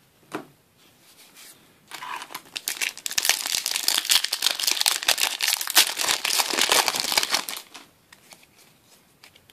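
A foil Yu-Gi-Oh booster pack wrapper crinkling and tearing as it is ripped open by hand. The dense crackle starts about two seconds in and lasts about six seconds, then stops.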